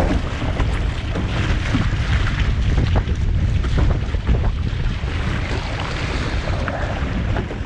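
Wind buffeting the camera microphone over water rushing and splashing along the hull of a Musto Skiff sailing fast in a gusty breeze.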